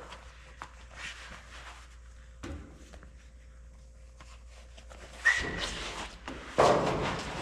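Leather gauntlet work gloves being handled and pulled on: a few faint clicks at first, then rustling and scuffing in two louder stretches over the last two seconds, the first with a brief squeak.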